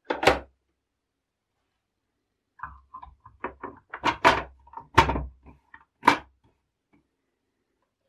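Plastic housing panels of a DeLonghi ESAM Magnifica coffee machine being pushed and snapped into place by hand. There is a sharp clack at the start, then a run of clicks and knocks, with the three loudest knocks in the middle and about six seconds in.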